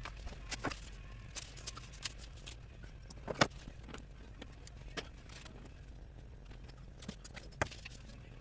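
Scattered light clicks and short scrapes of small metal parts being handled as old silicone is scraped off the RC boat's stuffing boxes, over a steady low hum.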